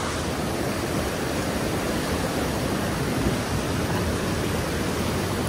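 Water rushing steadily over and between rocks in a mountain stream.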